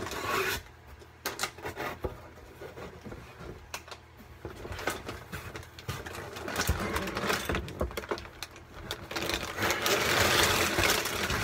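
Cardboard packaging being handled: scattered scrapes, taps and knocks as the box lid and its flaps are lifted. Near the end the sound turns into denser, louder rustling as the plastic bags of LEGO pieces are uncovered.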